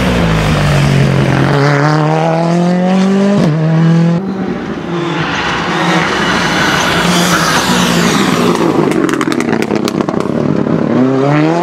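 Ford Fiesta rally car's turbocharged four-cylinder engine accelerating hard at full throttle, its pitch climbing through quick upshifts. A burst of rapid sharp crackles comes about nine seconds in, and the engine revs up again near the end.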